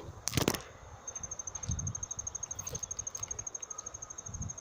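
An insect chirping in a fast, even, high-pitched pulse, about ten chirps a second. A sharp knock sounds just after the start, with a few soft low thumps later.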